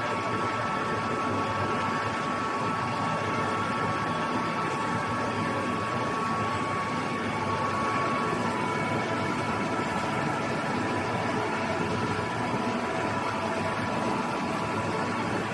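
Automatic TIG pipe-welding machine at work: a steady hiss and hum with a thin high whine, which drops slightly in pitch about eight seconds in.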